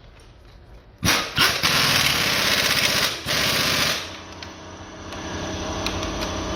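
Cordless impact wrench with an 18 mm socket hammering the new engine mount's bolts tight. It starts suddenly about a second in, rattles loudly for about three seconds with a brief break, then carries on quieter.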